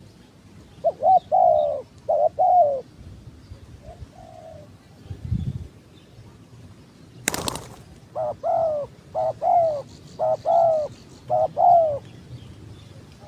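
Spotted dove cooing in repeated short phrases of two or three low notes, in two bouts with a pause between. About five seconds in there is a low thud, and about seven seconds in a single sharp knock.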